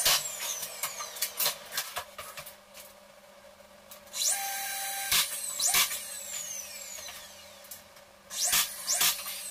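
Cordless drill driving screws into white pine roof framing, running in short bursts, the longest about a second long, with sharp knocks of wood and tool between runs.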